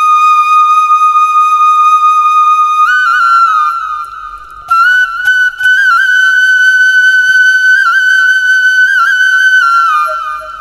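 Background music: a flute playing a slow melody of long held notes, with a short break about four seconds in and a softer stretch near the end.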